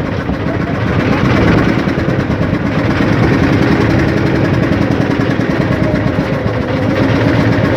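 Small boat's engine running steadily, with a rapid, even throb.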